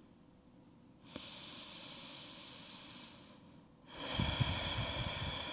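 A person breathing slowly, heard close up: a softer breath about a second in, a short pause, then a louder breath about four seconds in with low puffs of air on the microphone.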